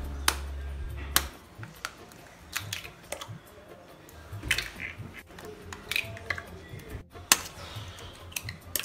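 Hen's eggs being cracked and broken into a plastic bowl: a string of sharp shell clicks and taps, the loudest about seven seconds in.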